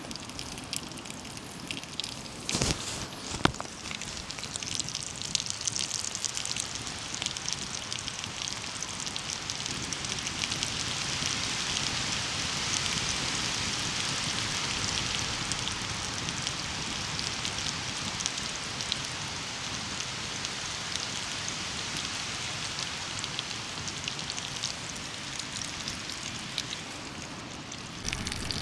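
Wood fire crackling and hissing inside a small titanium tent stove as damp kindling catches, growing stronger over the first ten seconds or so and then burning steadily. A few sharp knocks about three seconds in.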